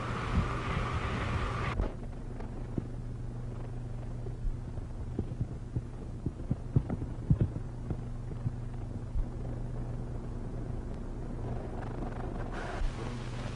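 Old film soundtrack noise: a steady low hum with hiss and scattered clicks and pops. The hiss drops away about two seconds in and comes back near the end.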